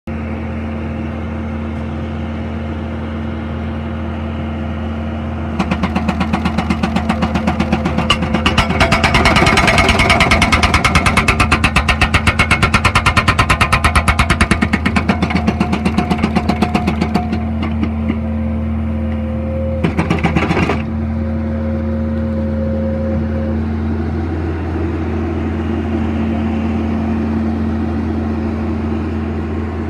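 Skid steer loader engine running steadily while a Bobcat HB980 hydraulic breaker hammers in rapid blows for about twelve seconds, starting about six seconds in, followed by a second short burst of hammering about a second long.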